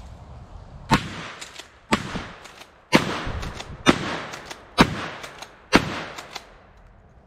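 A shotgun fired six times, about one shot a second, each shot trailing off over about half a second, with lighter clicks between some of the shots.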